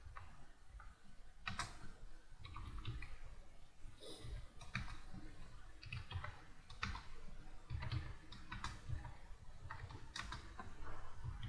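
Computer keyboard being typed on in a typing-tutor exercise: slow, uneven key clicks, a few a second.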